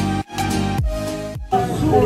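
Background music, an upbeat track with a steady beat, cutting off about one and a half seconds in; voices and restaurant chatter follow.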